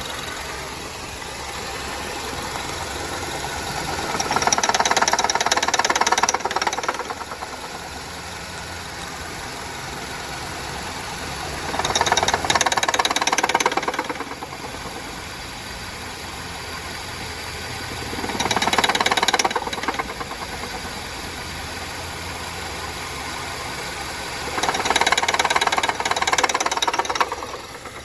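2009 Honda Civic sedan engine running with a knocking, rattling noise. The noise swells four times, about every seven seconds, each time into a rapid fine ticking. Replacing the water pump and belt tensioner has not cured it.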